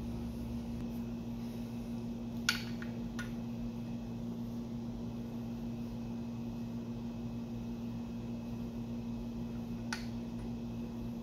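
Steady low hum, with a few light metal clicks of a hand wrench working on an engine's chain sprocket bolt: two about two and a half and three seconds in, and one near the end.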